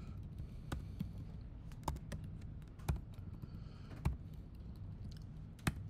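Unhurried typing on a computer keyboard: separate key clicks at uneven spacing, the loudest roughly once a second, over a faint steady low hum.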